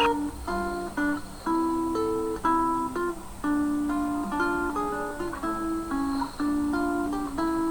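Acoustic guitar playing a slow, gentle melody of plucked notes, one or two a second, each ringing briefly before the next.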